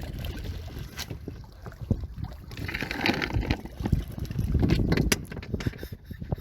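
Wind buffeting the microphone on an open boat, with scattered knocks and clicks.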